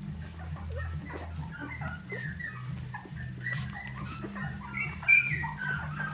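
Finnish Lapphund puppies, a few weeks old, squeaking and whimpering while they nurse. The short high squeaks come several a second, with one louder squeal about five seconds in, over a steady low hum.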